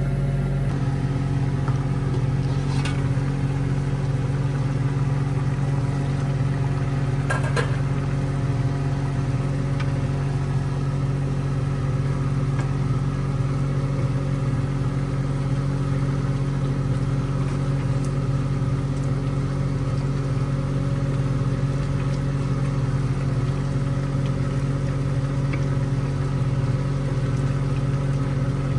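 Steady low motor hum running without change, with a couple of light clinks in the first eight seconds.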